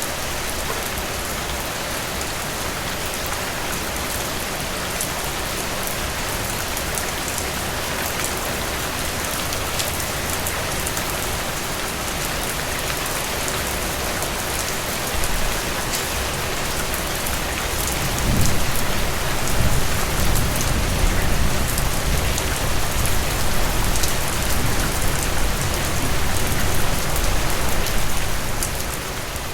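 Heavy rain falling steadily, an even hiss with scattered drop ticks. About two-thirds of the way through, a low rumble swells underneath and the sound gets louder.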